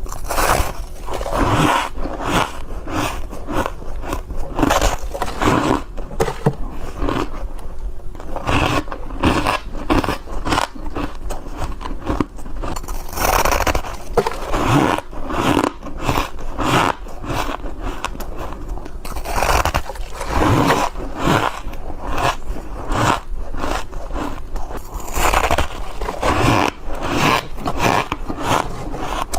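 Freezer frost being bitten and chewed close to the microphone: a continuous run of squeaky, crunchy bites, several a second.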